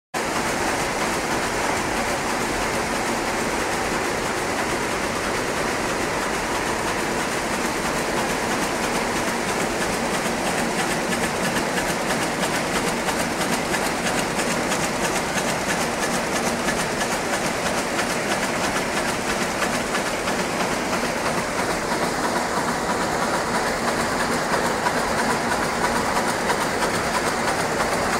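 A 910SK terry towel rapier loom running and weaving: a fast, steady mechanical clatter.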